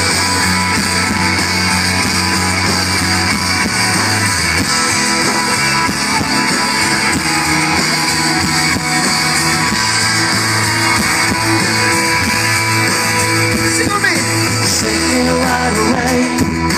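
Live pop-rock band playing the instrumental intro of a song, with guitar to the fore over a steady bass line.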